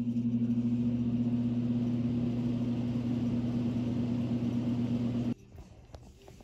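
Steady low electrical hum that cuts off abruptly about five seconds in.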